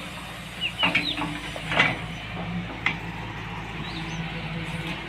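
Short bird calls and a few sharp knocks over a steady low hum.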